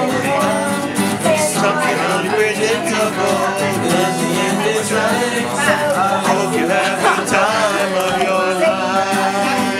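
Two steel-string acoustic guitars strummed together while a young male voice sings along.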